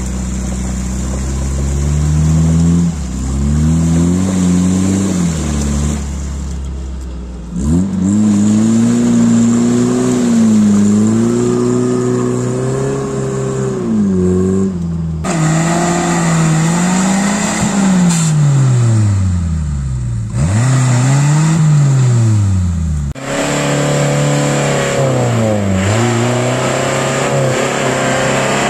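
Off-road 4x4 engines revving hard as they push through deep mud, the pitch climbing and falling again and again, broken into several spliced clips that change abruptly.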